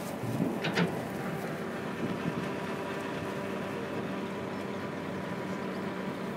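A vehicle engine running steadily with an even hum, and a brief higher-pitched sound less than a second in.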